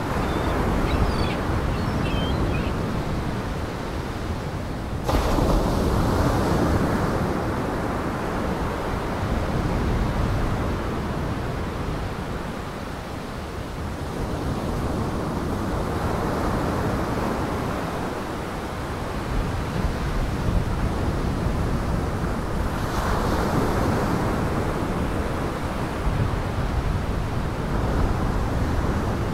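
Waves breaking and washing on the shore, a steady surf with some wind, surging louder now and then and stepping up suddenly about five seconds in.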